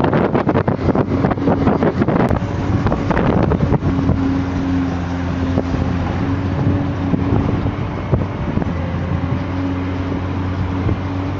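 Heavy machine's engine running steadily with an even drone, and wind buffeting the microphone with crackly gusts in the first few seconds.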